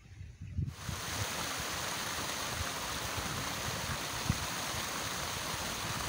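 Small stream pouring down a stepped stone cascade: a steady rush of splashing water that comes in suddenly about a second in.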